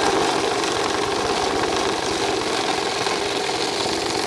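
Electric bill-counting machine running, feeding a stack of paper dollar bills through in a fast, steady riffle over its motor hum. The riffle cuts off at the very end as the hopper empties, leaving only the motor hum.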